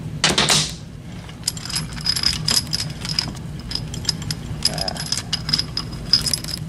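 Steel roller chain and sprocket parts of a Kawasaki Mule 3010 transmission clinking and rattling as the reverse chain is worked off its sprockets and laid down: many small irregular metallic clicks over a low steady hum.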